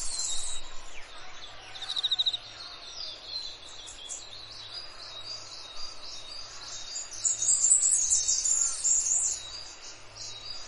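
Forest bird chorus: many birds chirping and calling high and thin, with a quick even trill about two seconds in and a louder, busier spell of calls around seven to nine seconds in.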